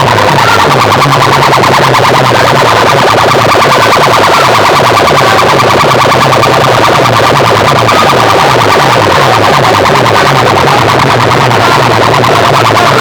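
Large outdoor DJ loudspeaker system playing electronic music at extreme volume, distorted and clipping. A fast-pulsing, siren-like synth tone sits over a stepping bass line.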